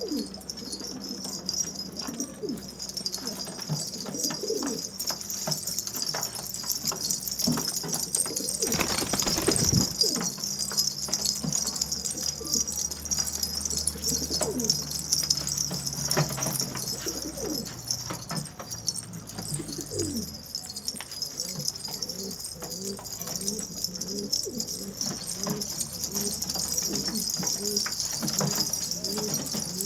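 Domestic pigeons cooing repeatedly, many short low calls overlapping, over a steady high hiss. A brief rustling burst, likely wing flapping, comes about nine seconds in.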